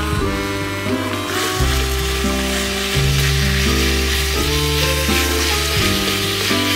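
Raw minced meat and sliced onions sizzling in a hot frying pan, the sizzle swelling about a second in as a spatula stirs and breaks up the meat. Background music with sustained low notes plays throughout.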